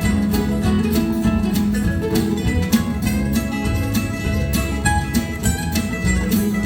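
Live acoustic band playing an instrumental passage, with picked guitar to the fore over steady strumming.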